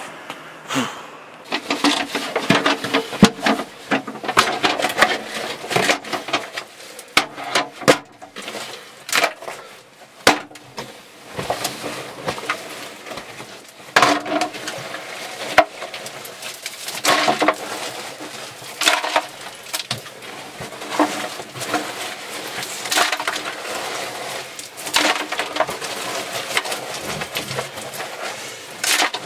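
Digging in a cramped cave passage: rock and rubble knocked, scraped and crunched loose by hand and loaded into a bucket, in irregular knocks with a few sharper strikes.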